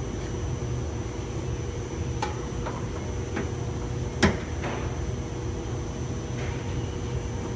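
A few light clicks and one sharper tap, most of them between two and five seconds in, from hand tools working on a car door panel, over a steady background hum.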